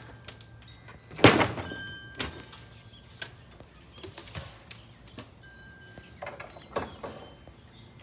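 Sharp knocks and thuds at irregular intervals, the loudest about a second in, with a few short, high, steady bird whistles between them.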